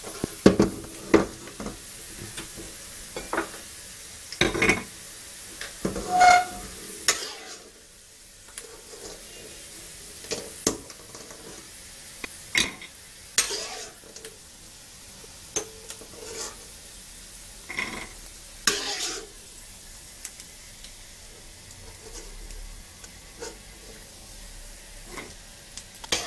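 Peanuts frying in a little oil in a wok with a faint sizzle, while a spatula scrapes and clinks against the cookware every second or two. The sizzle drops away about eight seconds in, leaving only the occasional scrape and clink.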